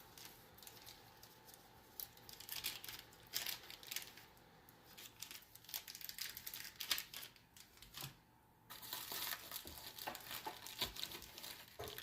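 Packaging crinkling and rustling in irregular bursts as the camera kit's contents are unwrapped and handled, with a short pause a little over two-thirds of the way through.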